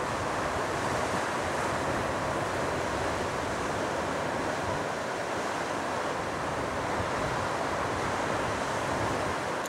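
Small sea waves washing steadily over a rocky shore, with some wind on the microphone.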